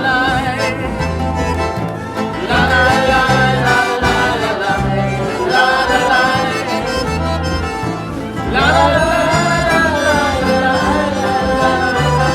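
Live band music: guitars and a melody line over a bass that steps between low notes on a steady beat.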